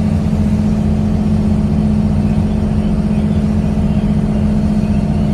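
Engine running steadily under load, heard from inside the vehicle or boat: an even drone with a strong low hum that holds the same pitch and level throughout.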